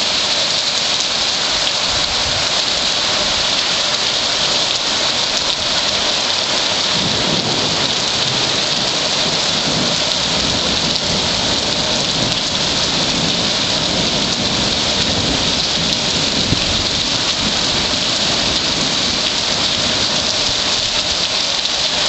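Heavy rain pouring down in a steady, loud hiss, with a low rumble of thunder underneath from about seven seconds in.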